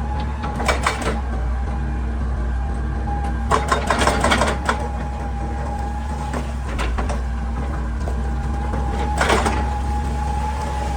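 Hitachi EX200 excavator working rock: its diesel engine runs steadily under a constant high whine, while three bursts of clattering and knocking, metal against rock, break in about a second in, around four seconds in, and just after nine seconds.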